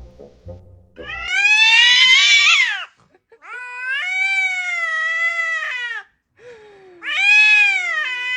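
A cat yowling in three long, drawn-out meows: the first rises and wavers, the second holds fairly steady, and the third runs on past the end. A short stretch of music with a beat stops just before the first call.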